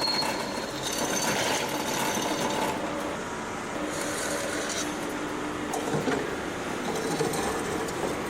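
Power drill running and boring into the steel casing of a removed refrigerator compressor, with a steady motor hum and uneven grinding mechanical noise.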